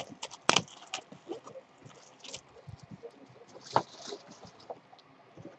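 A trading-card box and its wrapping being handled and opened: scattered rustles and crinkles with a few sharp taps, the sharpest about half a second in and near four seconds in.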